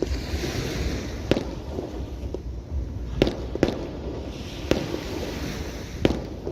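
Aerial fireworks display: shells bursting in about five sharp bangs at irregular intervals, two of them close together near the middle, over a constant background rumble.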